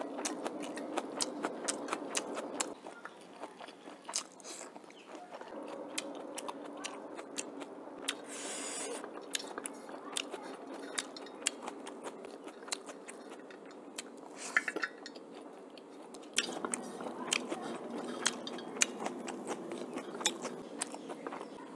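Close-up chewing of a mouthful of rice eaten by hand, with many short wet mouth clicks and smacks. Fingers now and then scrape and gather rice on a metal plate.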